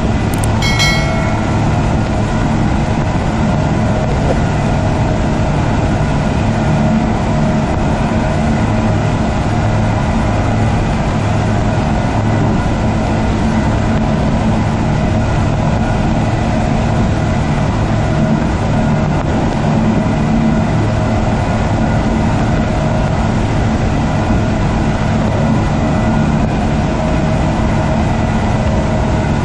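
Five Suzuki 250 hp V6 four-stroke outboard motors running together at high speed, a steady deep drone mixed with wind and rushing water from the wake.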